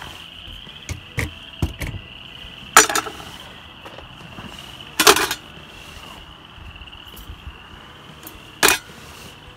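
Metal and plastic camping cook-kit gear (gas stove, fuel canister, tin box) being set down piece by piece on a wooden table: a few light clicks, then three sharper clacks a few seconds apart. A steady high chirring runs behind.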